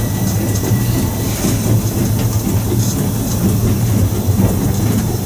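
Steam locomotive GR319 running along the track: a steady low rumble with wheel and rail noise.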